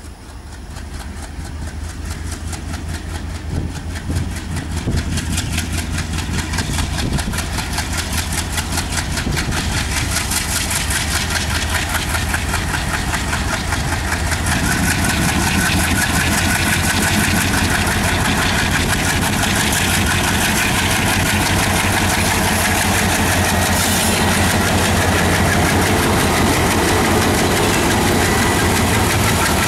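WDM-3A diesel-electric locomotive's ALCO 16-cylinder engine throttling up as it pulls a heavy train away from a stop. It grows louder over the first half, then runs loud and steady with a rapid pulsing beat.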